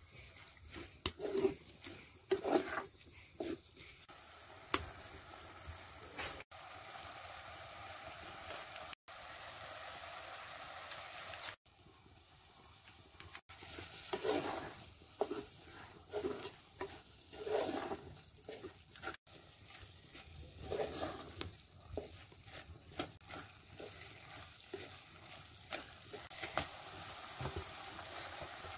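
A spatula stirring and scraping onions and tomatoes frying in a clay pot, in bouts of quick strokes, with a steady sizzle between them.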